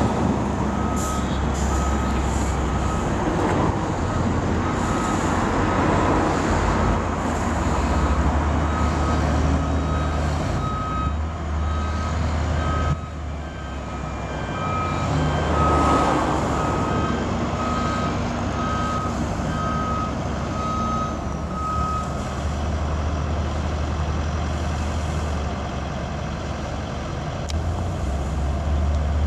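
Heavy diesel vehicle engine running with a steady low rumble, while a vehicle reversing alarm beeps at an even pace for about thirteen seconds in the middle.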